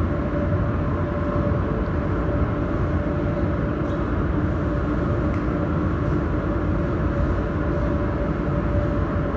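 A 200 W mold laser welding machine running: a steady rumbling hum with two steady tones, plus a few faint, scattered ticks.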